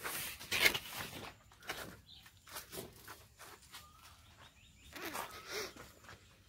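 Footsteps on a soft dirt path with broad banana leaves brushing and rustling against the moving phone, an irregular run of scuffs and swishes, loudest about half a second in.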